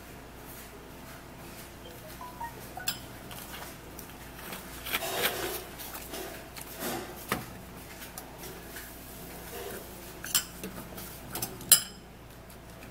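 A spoon scraping and clinking against a bowl while scooping dry garlic powder into it, in scattered clicks and short scrapes, the sharpest two near the end.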